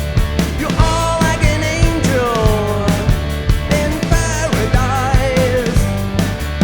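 A band playing a rock song: a steady drum beat and bass under a melodic lead line that bends in pitch.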